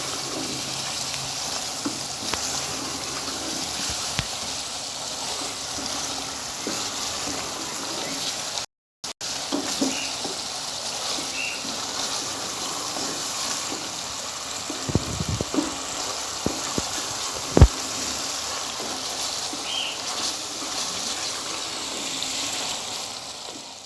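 Chicken and tomato masala sizzling steadily in a pan as it is stirred and fried down, with a few sharp knocks against the pan in the second half.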